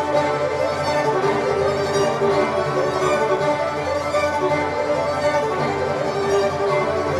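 Recorded music led by violin over strings, with sustained bowed notes, played back through a hi-fi system with a tube amplifier.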